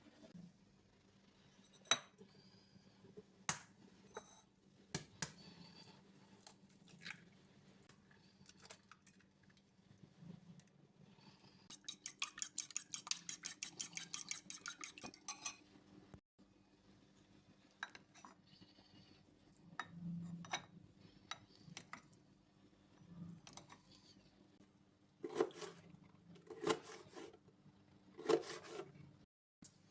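Kitchen utensils clinking and knocking against dishes and pans: scattered single clinks, a quick run of rapid tapping at about eight a second lasting a few seconds midway, and a few heavier knocks near the end.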